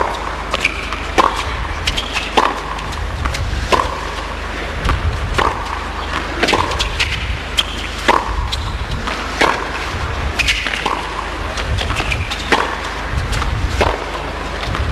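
Tennis rally: racket strikes on the ball, one sharp hit about every second or so with no let-up, over a steady low arena hum.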